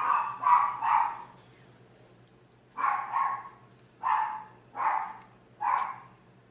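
A dog barking: a quick cluster of barks at the start, then after a pause a run of about four more, roughly one a second.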